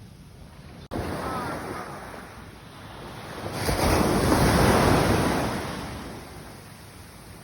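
Ocean waves on a beach: one wave builds, breaks loudly about halfway through and washes out, with wind buffeting the microphone throughout.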